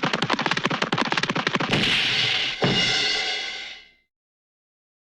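Cartoon running sound effect: a very rapid patter of quick foot taps, about ten a second, that breaks off about two seconds in into a burst of hiss, then a sharp hit followed by a ringing sound that fades away.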